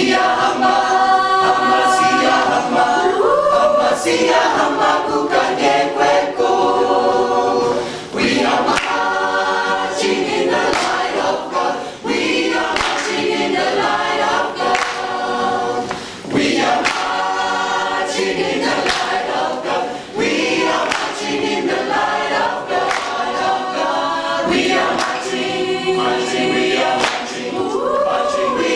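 A choir of many voices singing together, in phrases about four seconds long with brief breaks between them.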